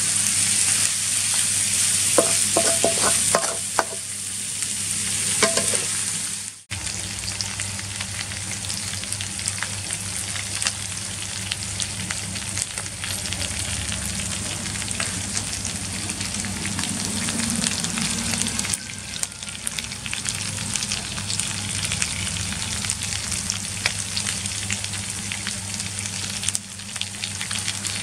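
Freshwater eel pieces frying in hot oil in a steel wok, sizzling and crackling steadily. In the first few seconds a wooden spatula scrapes and knocks against the wok as the pieces are stirred, with a short ringing on some of the knocks.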